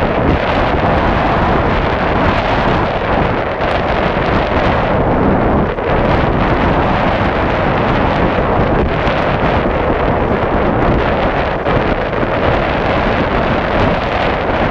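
Strong wind buffeting the microphone of a sailboat under way, a loud, steady rush, with water rushing along the hull beneath it.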